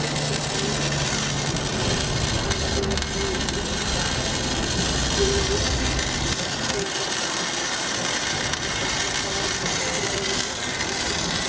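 MIG welder laying a weld on steel square tubing: a steady, dense crackling hiss. A low hum underneath drops out about halfway through.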